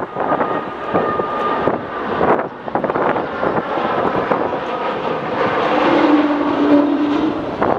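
Airbus A220-100 airliner on final approach with gear down, its Pratt & Whitney PW1500G geared turbofans heard as a loud jet rumble. A steady high whine runs through the first two seconds, and a lower steady drone comes in about five and a half seconds in.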